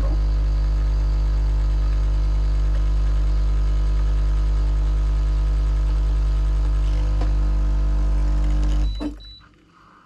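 Kotlie 4-in-1 capsule espresso machine's pump running loud and steady while it brews a cup, the machine vibrating hard. The hum cuts off about nine seconds in as the brew finishes.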